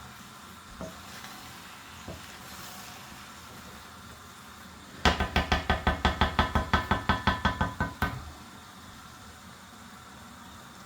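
A metal spoon knocking rapidly against a metal cooking pot: about fifteen quick, ringing knocks over some three seconds, starting about halfway in. A faint steady background hum lies before and after.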